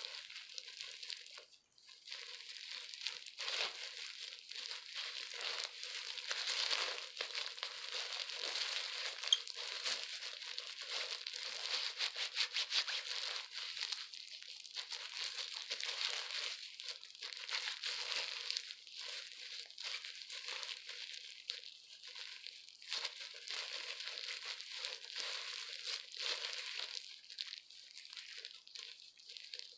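Disposable plastic gloves crinkling and rustling as gloved hands work hair colour through wet hair, a continuous uneven rubbing. It turns into a quicker, even rubbing about halfway through.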